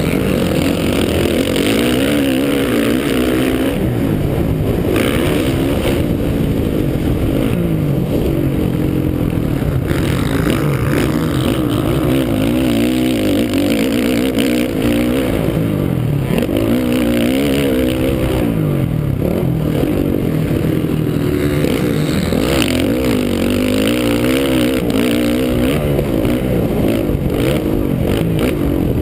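Motocross bike engine heard from on board, revving up and dropping back again and again as the rider accelerates, shifts and slows around the track.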